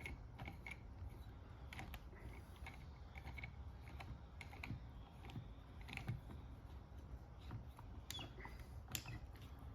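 Faint, scattered clicks and creaks of a cordless drill's clamp-on auxiliary side handle being twisted and tightened around the drill's collar, with a few sharper clicks near the end.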